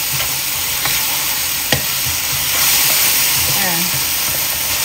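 Chopped pickled mustard greens sizzling steadily in a hot nonstick wok as a plastic spatula stirs them, with two sharp knocks of the spatula against the pan about one and two seconds in.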